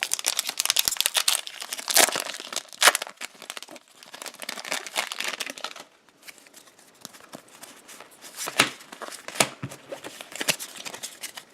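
Pokémon TCG booster pack's foil wrapper crinkling and tearing open, then quieter, sparser rustling and clicks as the cards inside are handled.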